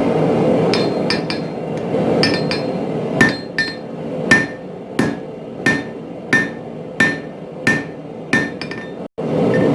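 Hand hammer striking hot steel on an anvil while forging spring-steel tongs. A few lighter taps come first, then about nine regular blows roughly one and a half a second, each ringing briefly. A steady rushing noise is under the first few seconds and returns after a short cut-out near the end.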